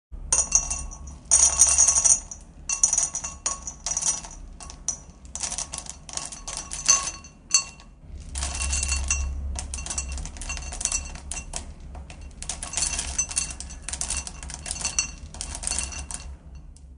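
Small hard homemade chocolate chips poured into a glass bowl, rattling and clinking against the glass in repeated bursts of rapid ticks. They are loudest about a second and a half in and again about eight seconds in.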